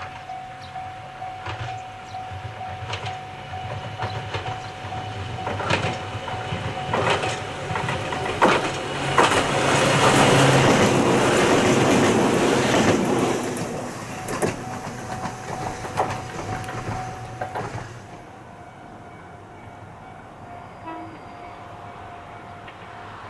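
Ohmi Railway 301F, a chopper-control electric train, approaching and passing close by, its wheels clacking over rail joints. It is loudest about ten to thirteen seconds in and fades as it goes away. About eighteen seconds in, the sound drops to a quiet steady background.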